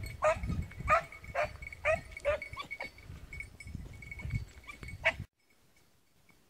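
Swiss hounds baying on the move, a quick string of barks about two a second, growing fainter, then cutting off abruptly about five seconds in.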